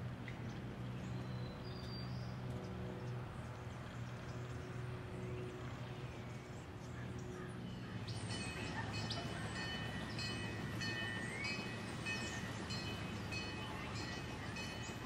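Outdoor background with a steady low hum; about eight seconds in, small birds start chirping in short, quickly repeated high notes over a steady high-pitched background.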